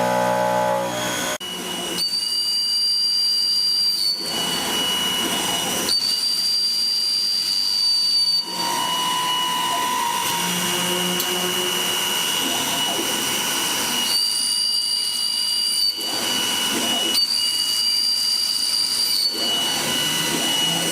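Milling spindle of a Kinetic K4000 CNC table cutting metal: a steady high-pitched whine, with a second, higher tone that cuts in and out every few seconds as the cut goes on.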